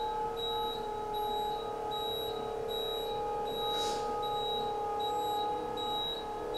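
Electric drive motor of a rollover pool dining table running steadily as the tabletop rotates over, a constant whine-like hum. A faint, rapidly repeating high beep pulses over it.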